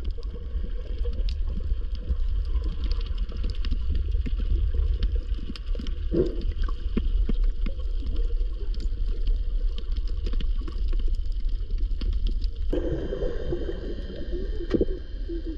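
Underwater sound picked up by a camera below the surface while snorkeling over a reef: a steady low rumble with many scattered small clicks and a few gurgles. The character of the sound changes suddenly about 13 seconds in.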